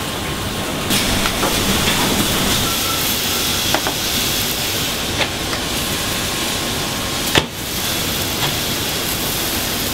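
Thinly shaved beef sizzling in a hot frying pan, a steady hiss, with a few sharp clicks, the loudest about seven seconds in.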